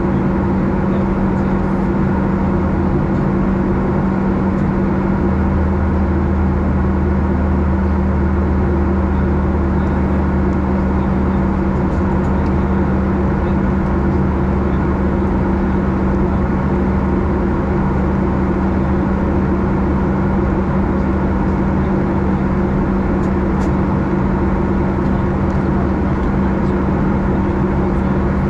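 Cabin noise of a Boeing 737 airliner in flight: the steady drone of engines and airflow, with a constant mid-low hum. A deeper hum comes in about five seconds in and stays.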